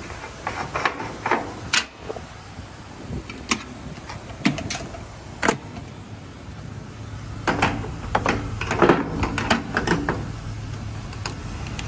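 A series of sharp metallic clicks and clanks from handling the pump and diesel nozzle at a semi truck's fuel tank as a second diesel pump is started. A low steady hum comes in about halfway through, under a dense cluster of clatter near the end.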